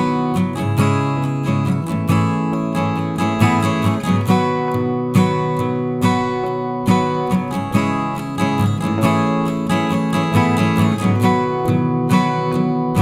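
Background music: acoustic guitar playing with frequent plucked and strummed notes.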